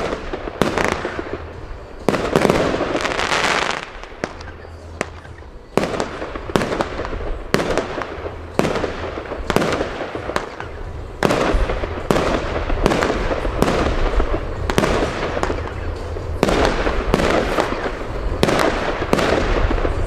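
Consumer firework battery firing shot after shot, a sharp bang about every second with a hissing wash between them. There is a quieter lull about four to six seconds in before the shots pick up again.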